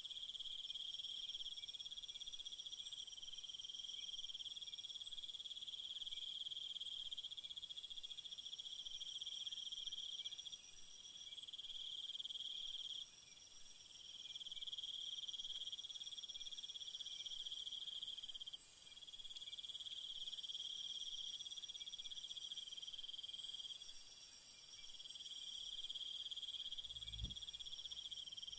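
Insect chorus: several layers of steady, high-pitched trilling, with the highest layer growing louder about halfway through. A soft low thud comes near the end.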